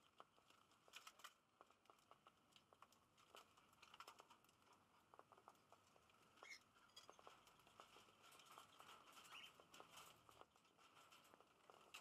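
Faint, irregular ticking and pattering of cockatiels pecking seed from a bowl and a seed-strewn floor, with one brief high chirp about halfway through.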